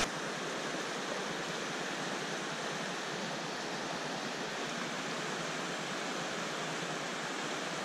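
A fast-flowing, rocky stream rushing over stones, a steady, even rush of water.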